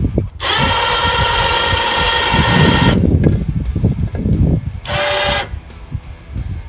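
Handheld power tool whining steadily for about two and a half seconds, then a run of knocks and clanks of metal being handled, and a second short burst of the tool near the end.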